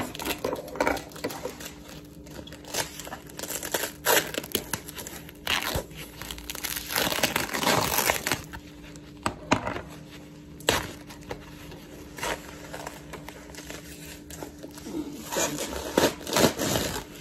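Bubble wrap being handled and pulled off a package: irregular crinkling and rustling, broken by sharp crackles.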